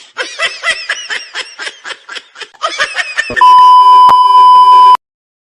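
Laughter in quick, repeated high-pitched pulses for about three seconds, then a loud, steady single-tone beep lasting about a second and a half that cuts off suddenly.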